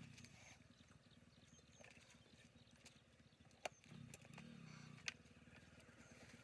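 Near silence: a faint low hum with two sharp clicks.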